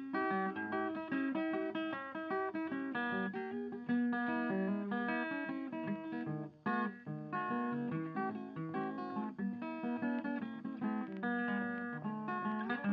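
Background music: a light instrumental piece of plucked guitar notes in a steady rhythm.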